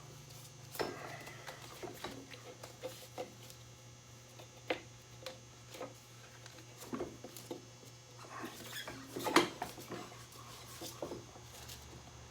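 Motorcycle rear wheel and drive belt being worked off the rear sprocket by hand: scattered clicks, scrapes and small squeaks of rubber and metal, with one loud knock about nine seconds in.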